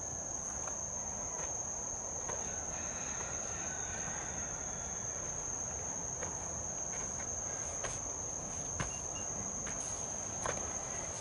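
A steady, high-pitched insect trill in the forest, unbroken throughout. A few faint scuffs of footsteps and rope handling come and go.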